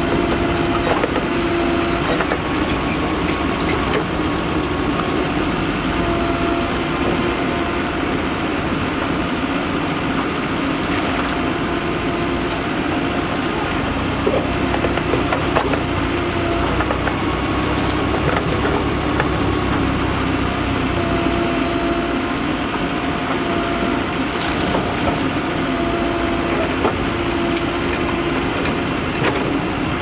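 Mahindra Earthmaster SX backhoe loader's diesel engine running steadily while the backhoe digs, with a whine that rises in spells every few seconds as the hydraulics work the arm, and a few scattered knocks.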